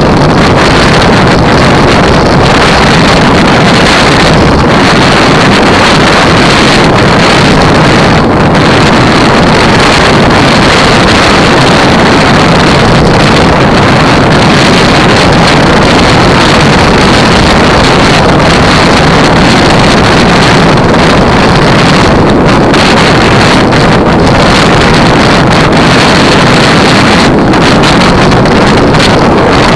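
Loud, steady wind noise buffeting the microphone of a camera mounted on a racing bicycle moving at about 37 km/h.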